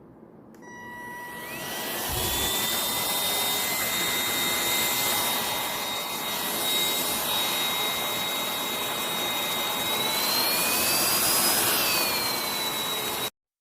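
Cordless stick vacuum cleaner motor spinning up to a steady high whine over a rush of air. About ten seconds in, the whine climbs in pitch as the motor speeds up, then settles back somewhat before the sound stops abruptly near the end.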